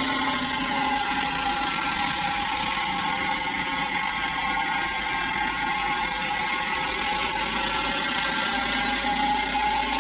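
The engine of a 1941-era Industrial Brownhoist 250-ton railroad wrecking crane running steadily while the crane swings its house and boom around.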